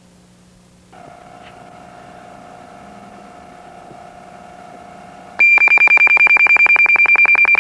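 A quiet steady electronic tone, then about five seconds in a loud, high-pitched electronic pager alert, beeping rapidly at about a dozen pulses a second. The page calls a doctor to a code.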